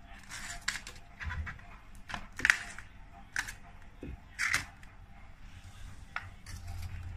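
Handling noises: about half a dozen short rustles and light knocks as a ceramic mug is touched and turned on a wooden table, the loudest about two and a half seconds in.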